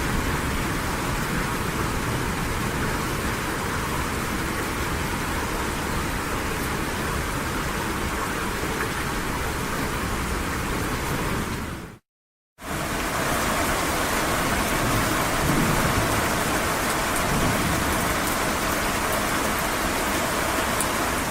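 Steady rain falling, an even hiss of drops. About twelve seconds in it cuts out to silence for half a second, then comes back a little louder.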